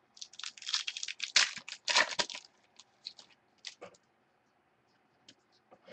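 Football trading cards and their pack being handled: about two and a half seconds of quick rustling and crinkling, then a few light clicks.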